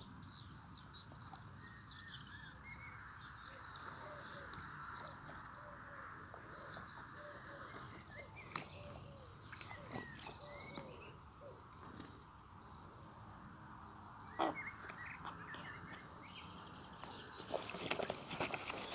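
Young raven bathing in a shallow water dish: quiet dipping at first, then vigorous splashing and wing-flapping in the water near the end.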